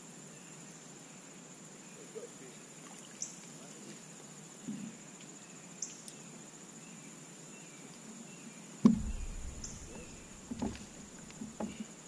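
Steady high-pitched insect drone, with scattered light knocks and one louder thump on the plastic kayak about nine seconds in.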